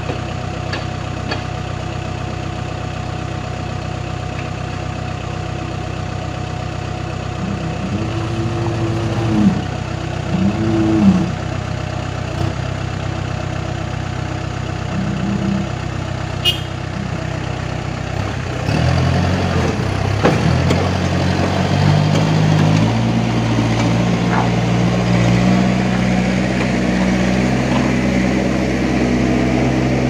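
Diesel engines of a backhoe loader and a stuck dump truck idling steadily, with a few brief revs in the first half. A little past halfway they grow louder and rev higher in rising steps, working under load as the mired dump truck is hauled out of the mud on a tow cable.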